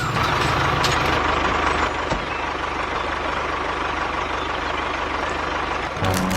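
Tractor engine running steadily with a constant low hum.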